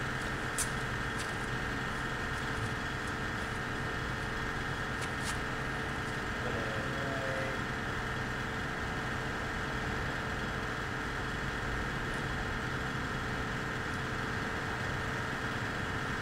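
Steady machinery hum in a covered parking garage, several held tones droning together without change, with a few faint clicks in the first seconds.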